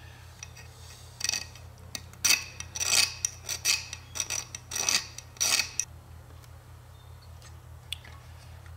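A small metal tool scraping the rough cast body of a Carter BBD carburetor in a run of short scratching strokes, stopping about six seconds in. A steady low hum lies underneath.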